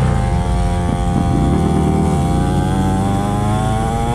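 Small two-stroke engine of a cheap mini dirt bike running under way, its pitch rising steadily as the bike gathers speed.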